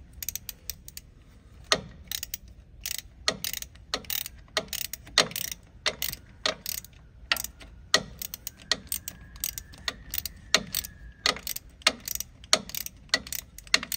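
Hand ratchet clicking in short, irregular runs as a wheel speed sensor is tightened down.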